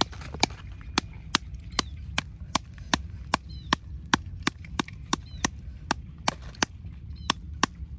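Sharp, evenly repeated knocks of a wooden stick striking the hard woody shell of a wood apple to crack it open, about two to three strikes a second, over a low wind rumble.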